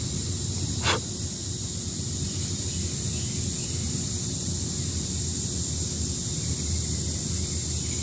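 Steady outdoor ambience: a low rumble under a steady high insect drone. One sharp click about a second in as a plastic action figure is picked up and handled.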